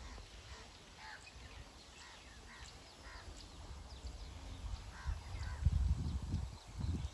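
Birds calling, many short chirps scattered throughout, with low thumps and rumbling in the second half.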